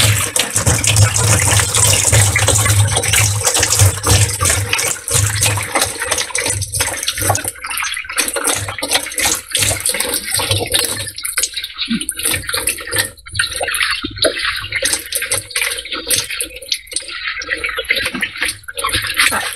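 Grey liquid pouring out of the cells of an upturned lead-acid car battery into a plastic trash can. It is a steady gushing stream for the first several seconds, then breaks into irregular splashes and dribbles that thin out toward the end.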